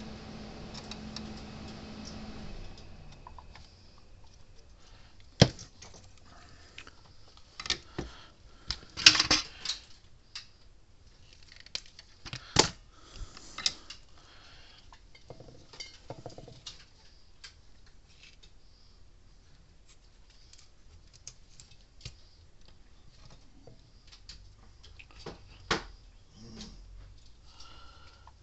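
Scattered clicks, taps and light metallic clatter of small tools and parts handled on a workbench during soldering work on an electric fence energizer circuit board. The loudest knocks come about five, nine, twelve and twenty-six seconds in.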